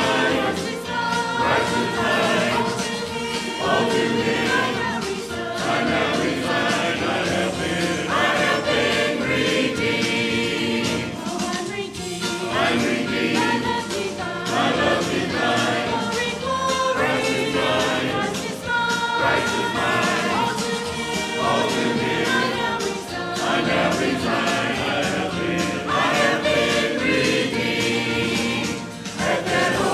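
A church choir singing a gospel hymn.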